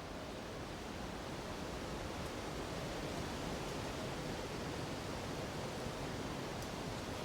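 Steady rushing of wind through forest treetops mixed with a nearby mountain river, swelling slightly over the first couple of seconds.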